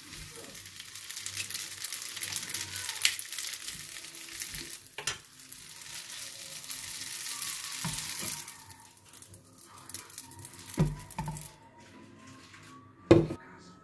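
Wide rice noodles sizzling in oil in a hot pan, with a spatula knocking against the pan now and then. The sizzle dies away about eight seconds in, leaving a few clinks of pan and dishes and one sharp knock near the end.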